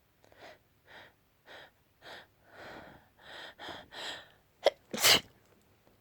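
A person building up to a sneeze with a run of gasping breaths. About five seconds in comes a short, sharp catch and then a loud sneeze.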